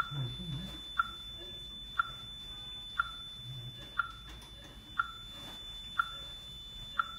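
Short electronic beeps at a steady one per second from the treatment equipment, over a faint continuous high-pitched tone.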